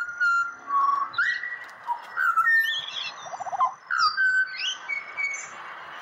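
Pied butcherbird singing a string of clear whistled notes, several of them sliding up or down in pitch, with higher chirps above.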